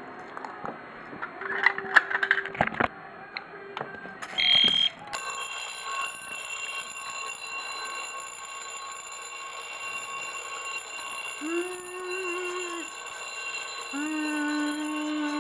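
Clicks and rattling, then from about five seconds in Edwards Adaptabel fire alarm bells and an ADT/EST Genesis horn go off together and keep sounding steadily, partly muffled with tape. A kazoo is blown twice over them near the end.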